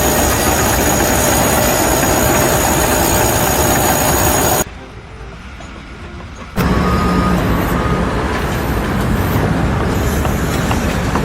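Loud heavy machinery running, cut off abruptly for about two seconds, then a different engine with a steady low hum and a few short high beeps.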